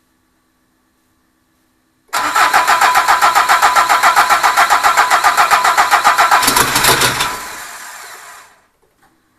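A Peugeot HDi diesel engine being cranked over by its starter for its first start, a rapid, even pulsing lasting about five seconds. Near the end a deeper note joins, then the sound winds down and stops within about a second and a half. A faint steady hum of the electric fuel pump is heard before and after.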